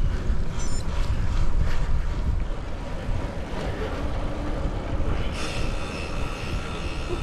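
Wind buffeting the microphone of a camera on a moving road bicycle, a steady low rumble. A steady high-pitched buzz joins about five seconds in.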